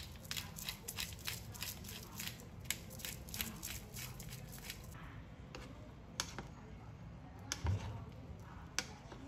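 A saucepan of quail eggs simmering in braising liquid, bubbles popping in quick clicks several times a second. The pops thin out about five seconds in, and a spatula knocks against the pot once near the end as the eggs are stirred.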